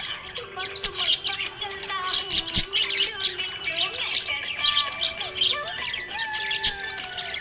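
Budgerigars chirping and warbling, a rapid, dense run of short high chirps with some gliding notes.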